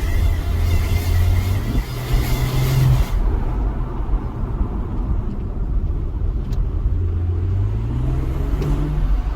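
A high, steady screech from underneath a 2018 BMW X3 M40i, over its 3.0-litre turbo straight-six running; the screech cuts off suddenly about three seconds in, leaving the low engine note, which rises twice. The screech is intermittent and undiagnosed, with no fault codes and the car otherwise driving fine.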